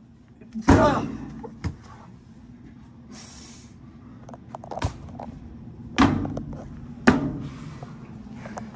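Wrestlers' bodies and strikes landing in a wrestling bout: about five sharp thuds and slaps spread over several seconds, the first with a short yell or grunt. A steady low hum runs underneath.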